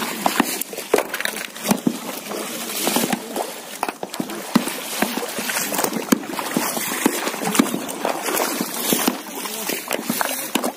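Shallow river water splashing and sloshing around people wading and turning over rocks by hand, with many short, irregular knocks.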